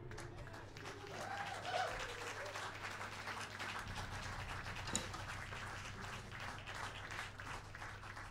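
Applause, fairly faint, a dense patter of many hands clapping that thins out toward the end.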